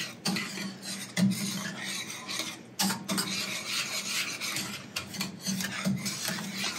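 A spoon or whisk stirring thick, creamy sausage gravy in a pan, scraping across the pan bottom in repeated strokes.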